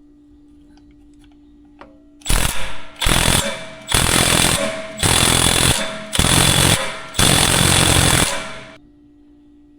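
Impact wrench hammering in about six bursts of half a second to a second each, starting a couple of seconds in and stopping near the end.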